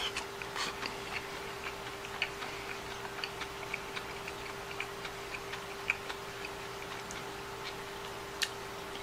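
Eating sounds: chewing of crisp stir-fried bean sprouts and cabbage, with many small irregular clicks of wooden chopsticks against a ceramic rice bowl. A steady faint hum runs underneath.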